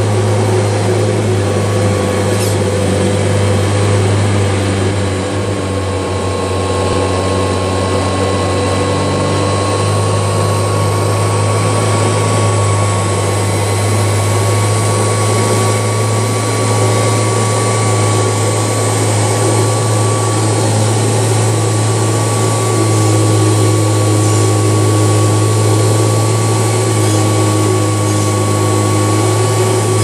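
Kirby Legend II upright vacuum cleaner running steadily on carpet: a loud, even motor noise with a low hum and a steady high tone.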